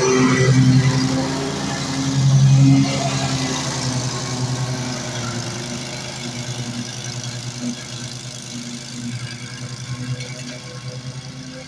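Engine of a custom zero-turn riding mower built on a Toro TimeCutter, running steadily while mowing and growing fainter as it drives away.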